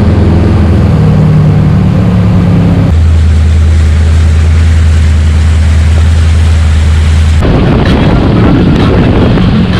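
Eliminator boat's engine running loud at a steady idle, its note dropping abruptly to a lower steady pitch about three seconds in. About seven and a half seconds in, a harsher, rougher sound takes over.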